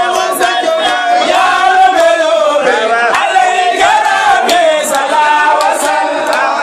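A group of voices chanting together, the melody rising and falling with long held notes.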